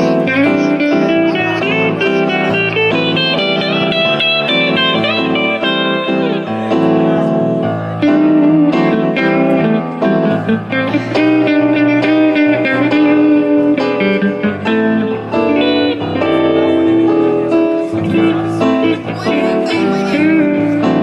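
Live electric guitar and electric keyboard playing an instrumental passage, with a busy run of quick melodic notes over sustained chords.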